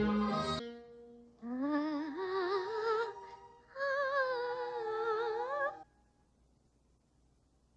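Orchestral music fades out in the first second. A young female cartoon voice then hums two short, lilting phrases with a wavering pitch, the first sliding upward as it starts, in the manner of a flirtatious girl rabbit.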